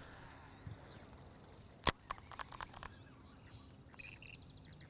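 Quiet open-air background on a boat: a single sharp click just before two seconds in, a few lighter clicks after it, and a quick run of faint bird chirps about four seconds in.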